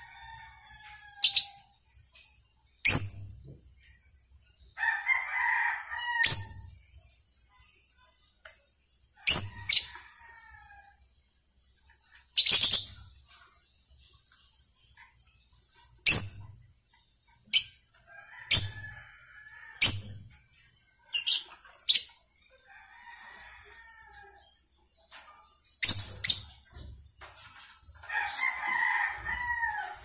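Caged lovebirds calling: sharp, high-pitched shrieks, about a dozen spaced a second or two apart, mixed with a few longer, lower chattering calls.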